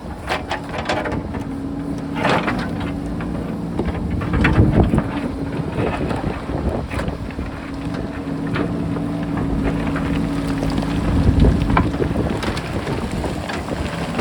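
JCB backhoe loader's diesel engine running steadily under working load, its pitch shifting as the hydraulics are worked, with occasional knocks and clatter of rock as the bucket digs into the hillside. Wind buffets the microphone.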